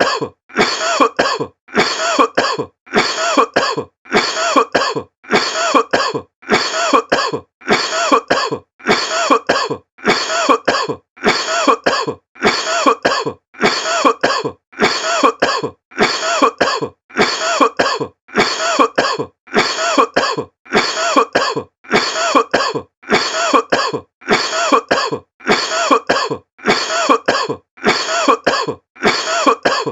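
A person's cough, repeated about once a second, each cough the same as the last: one cough looped over and over.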